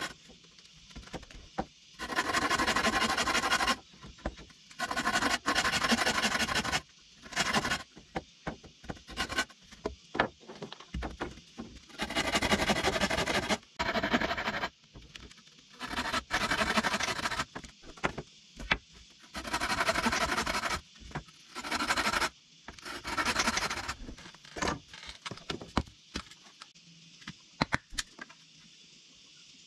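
A hand tool scraping along wood in repeated strokes, each lasting up to about two seconds, with short pauses between. The strokes thin out to a few brief scrapes and knocks near the end.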